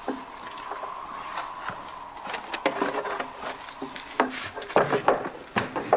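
Footsteps and wooden knocks on a plank floor with a door moving, a run of sharp thumps and clatters that gets busier and louder toward the end.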